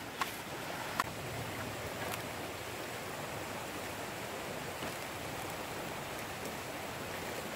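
Steady rush of a shallow rocky stream flowing over stones, with a few faint sharp clicks in the first two seconds.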